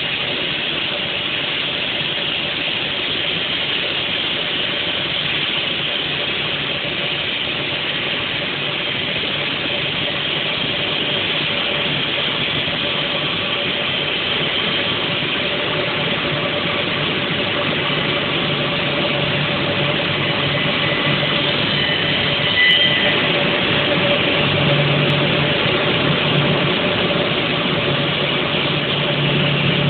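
Multi-blade stone block cutting machine running steadily, its saw blades cutting through a marble block under a water spray, with a constant motor hum. A single short knock sounds about two-thirds of the way through.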